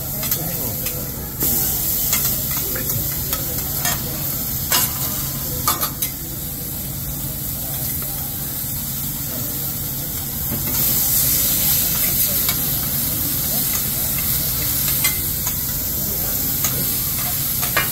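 Steaks sizzling on a steel teppanyaki griddle, a steady hiss that grows louder about eleven seconds in. Now and then the chef's metal spatula clicks and scrapes against the flat-top.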